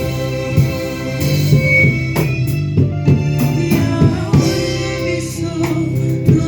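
Gospel worship music: singing over a steady drum-kit beat.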